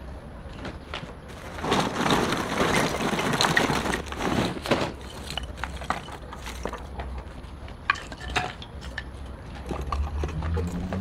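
Lump charcoal poured from a bag into a steel fire box, a rattling clatter of chunks tumbling onto metal and onto each other for about three seconds. Scattered clinks and knocks follow as pieces settle.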